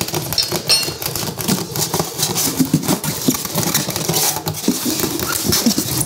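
Styrofoam packing inserts squeaking and rubbing against a stand mixer, with a steady run of small clicks and knocks, as the mixer is worked loose from its foam packaging.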